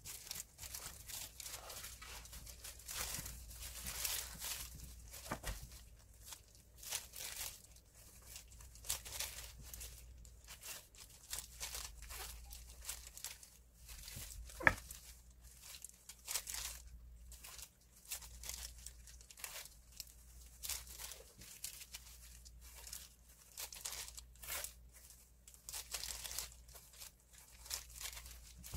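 Chef's knife cutting shiitake mushroom caps on a wooden cutting board: irregular soft cuts, scrapes and taps, with one sharper knock about halfway through. The disposable plastic gloves crinkle as the hands move.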